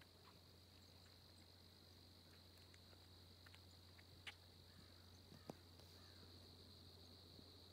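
Near silence, with a faint steady high-pitched insect trill, typical of crickets, and a couple of faint ticks.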